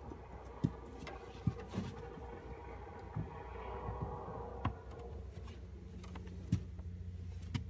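About seven scattered knocks and bumps of people moving about inside a small boat, over a steady low hum.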